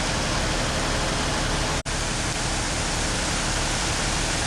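Steady, even rushing noise, broken by a split-second dropout about two seconds in.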